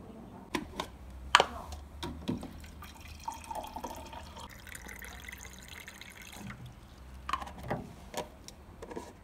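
Water running from the lever tap of a bottled-water dispenser into a small plastic thermos mug, a steady pour in the middle. Sharp knocks and clicks from handling the tap and mug come before and after it, the loudest about a second and a half in.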